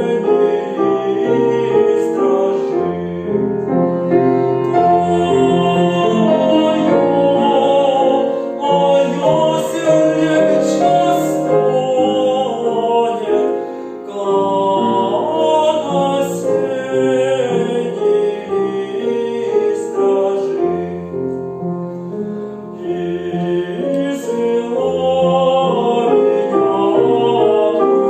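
Solo male voice singing a slow Russian folk song with piano accompaniment.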